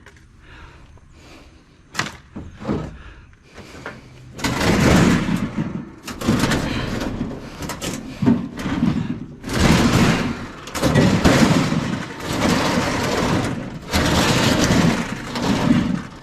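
A few sharp knocks, then a run of loud scraping and rattling from about four seconds in, in repeated stretches of a second or two: scrap items being handled and slid into place in a load.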